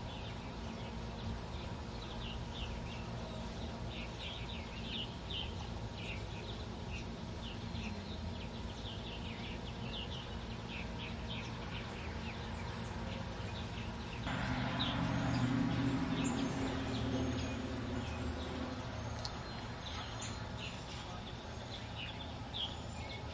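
Many short, high chirps from hummingbirds at the feeders, over a steady low hum. About fourteen seconds in, a louder low drone with a rushing noise starts up under the chirping.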